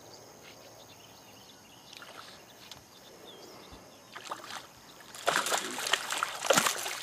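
Water splashing and sloshing in irregular bursts that begin about four seconds in and grow louder toward the end, as a hooked fish thrashes at the surface beside the boat.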